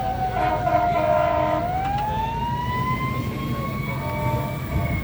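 Emergency vehicle siren wailing slowly: its pitch falls, turns about a second and a half in, then climbs slowly again. A steady low rumble lies underneath.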